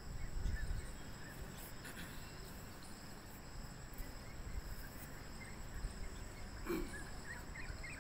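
Outdoor ambience: a steady high-pitched drone of insects such as crickets, over a low uneven rumble of wind on the microphone, with a few faint short chirps.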